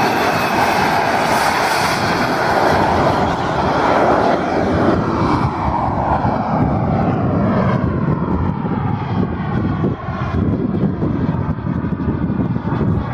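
Radio-controlled model Eurofighter Typhoon jet running its jet engine at takeoff power as it rolls, lifts off and climbs away: a loud steady rush whose high end fades over the second half as the model flies off.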